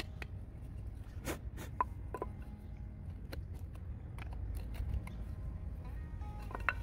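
Knife blade carving a notch into a pine stick: scattered sharp clicks and scrapes as it cuts, over a steady low rumble.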